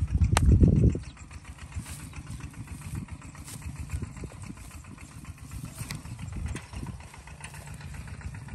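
A cow grazing close to the microphone, with faint crisp tearing and chewing of grass over a steady low rumble. The first second holds a louder low rumble, as the cow's head is right against the phone.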